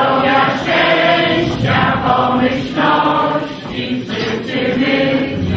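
A group of many voices singing together in unison, in short held phrases of about a second each.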